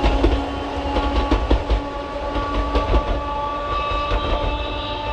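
Sanki Railway Hokusei Line narrow-gauge (762 mm) electric train running, with its wheels clicking irregularly on the rails over a low rumble and a steady whine.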